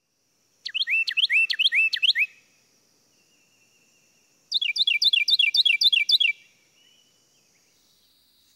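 A songbird singing two loud phrases of rapidly repeated sweeping notes, one about a second in and the other just past the middle, each under two seconds long.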